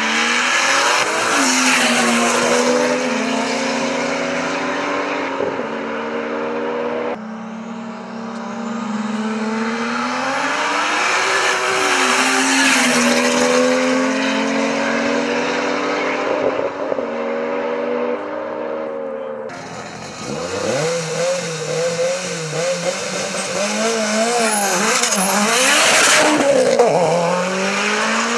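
Two turbocharged 2JZ-GTE straight-six cars, a Lexus SC300 and a MK3 Toyota Supra, at full throttle in a 40 mph roll race, their pitch climbing through each gear and dropping at the shifts. Then an 800 hp fully built Mitsubishi Lancer Evolution IX, a turbo four-cylinder, launches hard: its engine note wavers up and down, then rises steadily near the end after a loud rush of noise.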